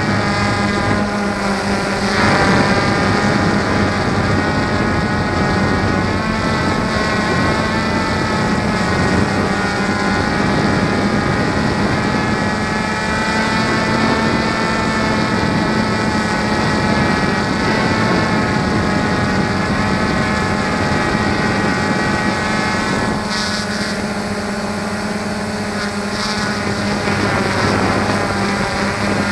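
Multirotor drone's motors and propellers whining steadily, heard close up from the drone's own camera, the pitch shifting as it manoeuvres, with changes about two seconds in and again near the end.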